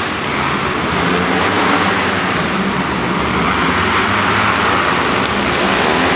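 Several supermoto racing motorcycles running hard around the track, their engine notes rising and falling as the riders throttle through the corners, heard from the stands of an indoor arena.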